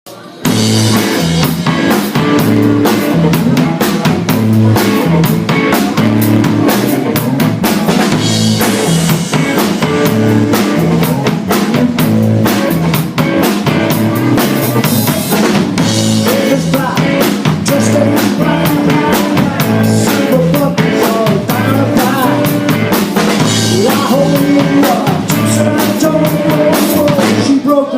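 Live band playing an instrumental intro: a drum kit keeps a steady beat over a repeating bass line. It starts about half a second in.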